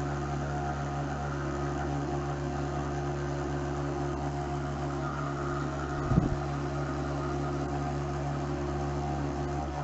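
Electric pump humming steadily as it pulls salt water through tubing into a cyclonic separator. A single brief low thump about six seconds in.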